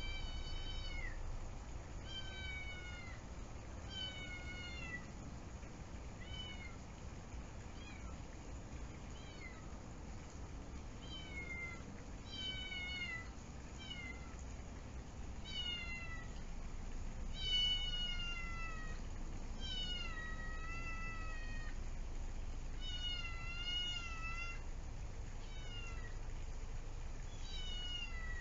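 A kitten meowing over and over, calling out for a companion. The calls come about every two seconds and most fall in pitch, with the loudest about two-thirds of the way through.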